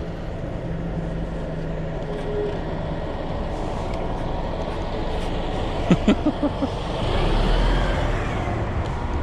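Street traffic heard from a moving bicycle: a steady rush of road noise. A few short sharp sounds come about six seconds in, then a bus's engine swells close by.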